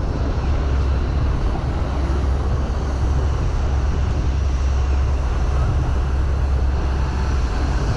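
Engine of a small open-top river cruise boat running steadily under way: a constant low drone with a rushing noise over it.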